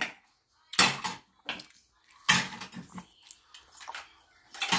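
Toy dishes and utensils clattering in several short, irregular bursts as a child handles them at a play kitchen.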